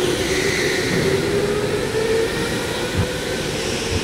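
Electric go-karts running around an indoor track: a steady motor whine over the echoing hum of a large hall, with a short low thump about three seconds in.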